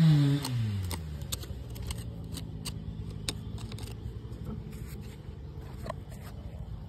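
An engine drops in pitch in the first second and settles into a steady low hum. Over it come scattered sharp clicks and scrapes of a metal hand tool picking at dirt and rock.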